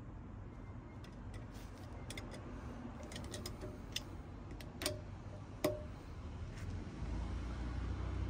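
Ratchet wrench clicking on a car's wheel bolt as the handle is worked back and forth, in short runs of quick clicks. Two sharper metallic clicks come about halfway through.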